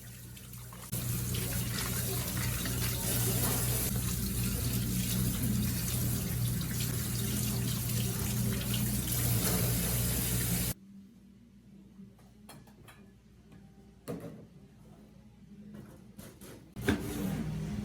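Kitchen tap running steadily into a sink, shut off abruptly about eleven seconds in. A few light clicks and knocks follow, and the water runs again near the end.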